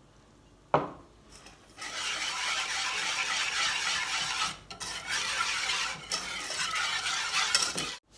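Metal balloon whisk beating a thin milk-and-egg mixture in a saucepan: a steady scraping swish that starts about two seconds in, with two brief pauses. A single sharp knock comes just under a second in.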